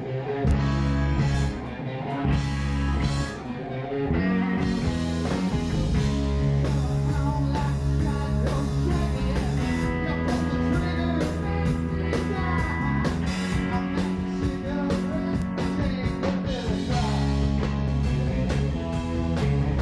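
A rock band playing live and loud: electric guitars and a drum kit, with a singer's voice over the band.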